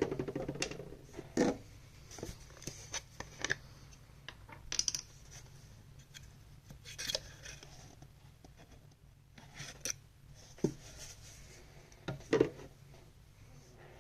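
Irregular small clicks, taps and short scrapes of hands handling laptop parts during a CPU fan install. The loudest come about a second and a half in and again near the end.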